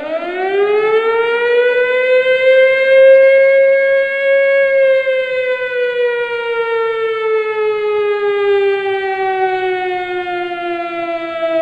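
Air-raid siren with a rich, many-overtoned wail. It rises in pitch over the first three or four seconds, holds near its peak briefly, then slowly falls as it winds down.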